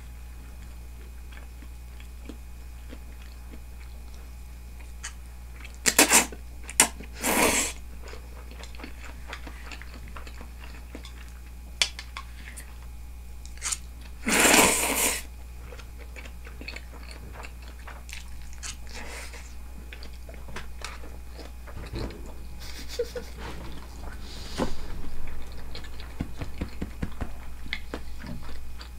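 A person slurping udon noodles and chewing them, with a few short slurps about six seconds in, one long slurp about halfway through, then a stretch of chewing near the end.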